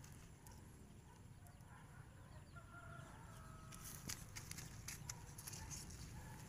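Dry grass and straw crackling and rustling under a toddler's steps, a run of light crunches from about halfway through, over a faint outdoor background with faint distant bird calls in the first half.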